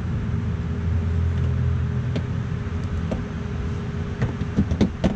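Small plastic clicks and taps as a pry tool works a plastic push pin out of a car's fender liner, with a quick cluster of sharper clicks near the end. A steady low hum runs underneath.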